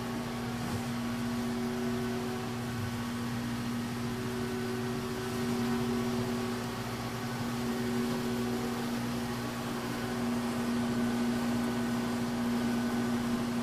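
Steady electrical hum with a faint whir from shop machinery running, holding one even pitch with no change or strokes.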